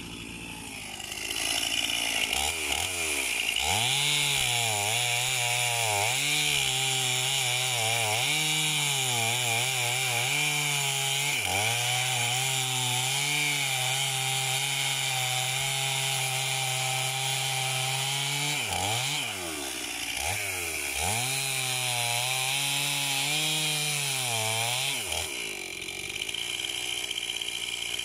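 Two-stroke chainsaw engine running, its revs rising and falling in several swells. It is held high and steady for several seconds in the middle, then drops back about three seconds before the end.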